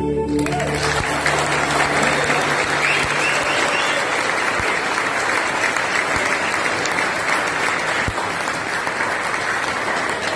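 Audience applause in a hall, many people clapping steadily. It breaks out as the music stops about half a second in.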